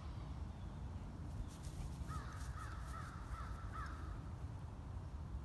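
An animal calls a quick run of about six short, sweeping notes for a little under two seconds, over a steady low rumble.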